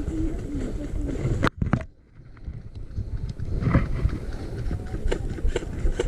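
Wind and movement noise rumbling on a body-worn camera microphone as a player moves through snowy woods, with footstep ticks. Two sharp knocks come about a second and a half in, then the sound cuts out for about half a second and fades back.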